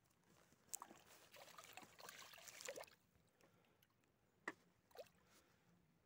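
Faint water sloshing and trickling as a landing net is worked in the shallows, followed by two short splashes near the end.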